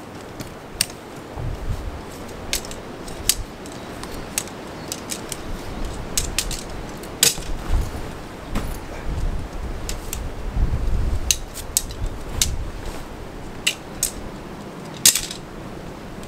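Camping gear being handled and packed up: a string of irregular small metallic clicks and clinks, like buckles and fittings, with dull bumps from handling in between.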